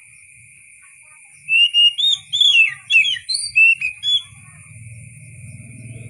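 Oriental magpie-robin singing a short burst of loud, clear whistled phrases with rising and falling slurs, starting about a second and a half in and stopping about four seconds in. A steady high-pitched drone runs underneath throughout, and a low hum builds near the end.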